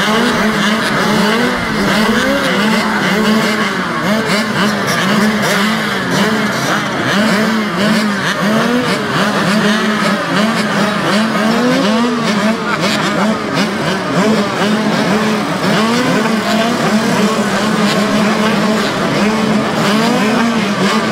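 A row of youth mini dirt bikes idling and revving together while waiting at the starting gate. Many engine notes overlap, each rising and falling as the riders blip their throttles.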